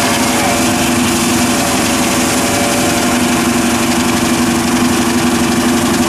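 Tractor engine and PTO-driven FAE CH-45 tillage rotor churning through sandy soil. A steady machine drone with a constant hum, even in level throughout.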